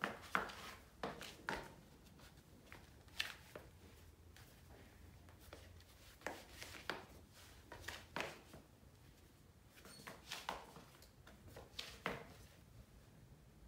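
Faint footsteps in slide sandals on a tile floor: scattered soft taps and scuffs of the soles, coming every second or so in small clusters.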